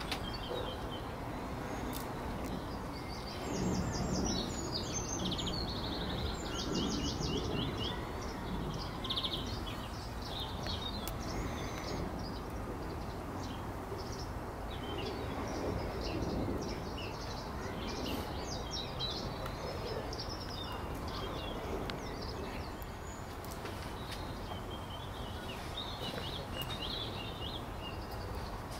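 Small birds chirping and singing in short phrases on and off over a steady background of outdoor noise.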